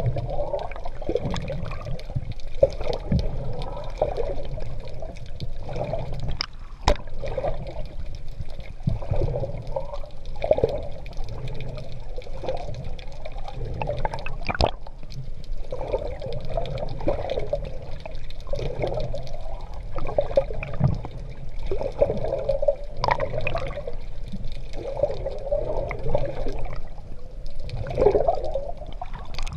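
Swimming strokes in open sea: water sloshing and splashing, with a surge every second or two.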